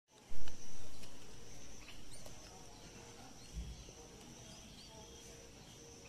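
Faint outdoor ambience: a steady high insect drone with scattered short, high bird chirps. There is a brief louder rumble right at the start.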